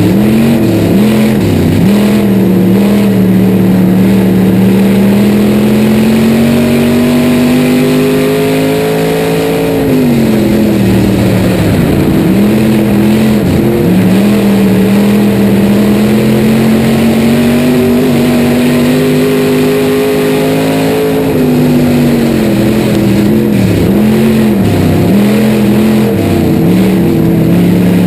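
Dirt-track race car's engine heard from inside the cockpit at racing speed. Its pitch climbs steadily down each straight, drops sharply as the throttle is lifted for the turn about ten seconds in and again about twenty-one seconds in, and wavers up and down through each corner as the throttle is worked.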